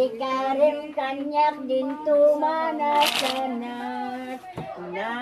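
A woman's voice making drawn-out, pitched vocal sounds that rise and fall in short runs, with a brief hissy burst about three seconds in.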